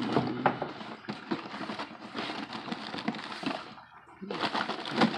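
Cardboard snack-bar boxes being shuffled and pulled around on a cupboard shelf: a dense run of crackles and clicks, with a short pause about four seconds in.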